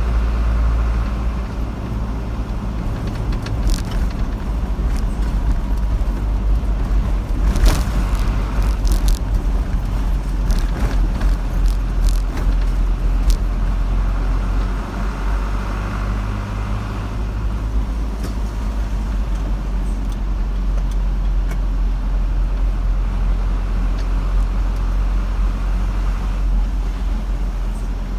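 Car driving on a road: a steady low rumble of engine and tyres, with scattered sharp clicks and knocks in the first half.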